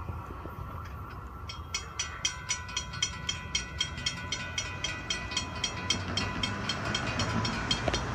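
Railroad crossing warning bell ringing rapidly, about four strikes a second, starting about one and a half seconds in, over a low steady rumble.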